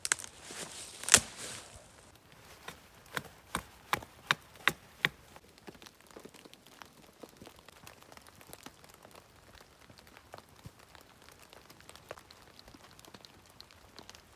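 A loud sharp knock about a second in, then a run of sharp knocks, about three a second, from about three to five seconds in, fading to faint scattered ticks.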